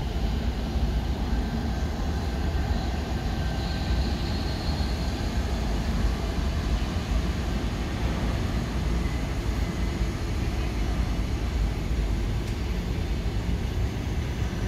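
EP2K electric locomotive and its passenger coaches rolling past, with a steady low rumble of wheels and running gear on the rails.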